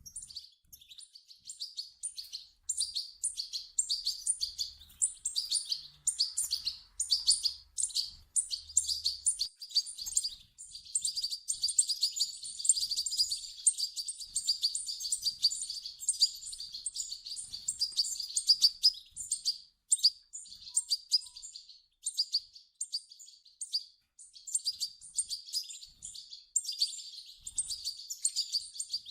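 European goldfinch chicks calling: dense runs of rapid, high-pitched chirps broken by short pauses.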